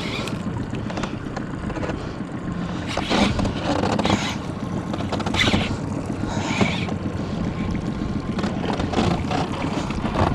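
Steady wind and water noise on a small fishing boat, with a faint low hum underneath and a few brief swells of rushing noise.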